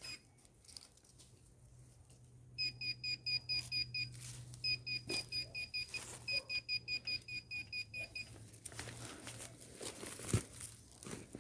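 Minelab Gold Monster metal detector beeping in quick runs of short, high-pitched pulses, about five a second, as it sweeps over a buried metal target that the operator takes for discarded aluminium foil. There is a thump near the end.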